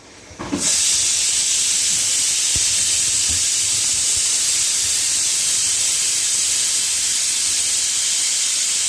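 Steam hissing steadily and loudly from a pressure cooker as it vents, starting suddenly about half a second in.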